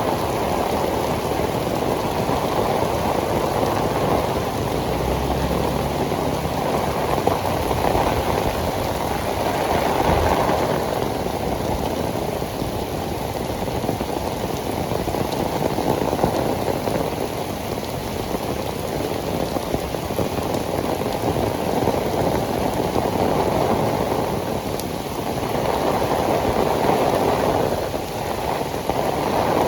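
Heavy tropical rain, a steady downpour of drops hitting the ground, swelling a little louder about ten seconds in and again near the end.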